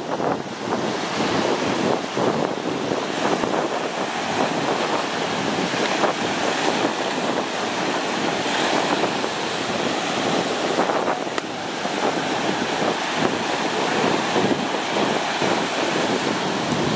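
Sea waves breaking and surf washing in, with wind buffeting the microphone.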